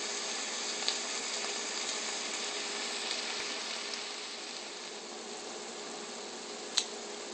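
Ground beef, onions and mushrooms frying in a stainless pot, a steady sizzle that eases a little about four seconds in, with a faint click about a second in and a sharper one near the end.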